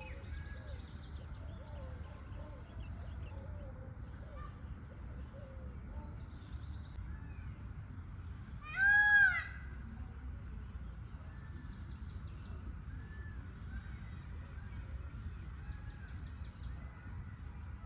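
Faint chirping of small birds over a low, steady outdoor background. About halfway through comes one loud, short call from an Indian peacock.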